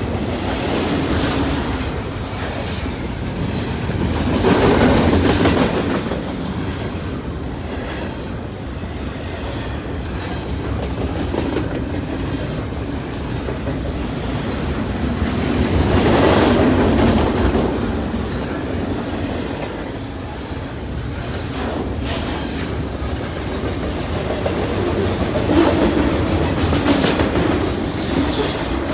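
Freight train cars rolling past, their wheels clacking over the rail joints in a continuous rumble that swells louder about every ten seconds.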